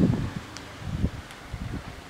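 Wind buffeting the microphone in irregular low gusts, strongest at the start and again about a second in.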